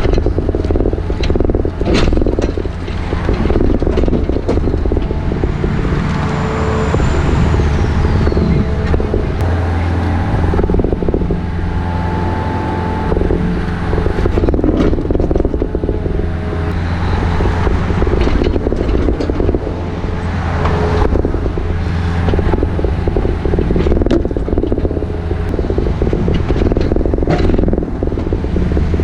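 Pickup truck cruising at highway speed while towing an excavator on a trailer: a steady drone of engine and road noise inside the cab, with a few clicks and rattles.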